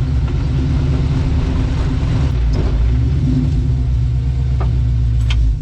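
Ford Coyote V8 engine in a Mustang, running as the car is driven at low neighbourhood speed: a steady deep rumble.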